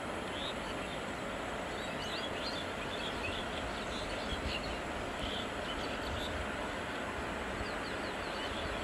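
Steady outdoor background noise with many short, high bird chirps scattered throughout.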